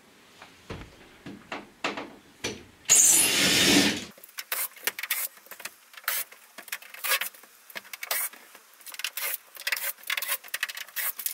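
A cordless drill-driver runs loudly for about a second, roughly three seconds in. Before and after it come many short clicks and small metallic rattles as screws are worked out of plywood van wall panels.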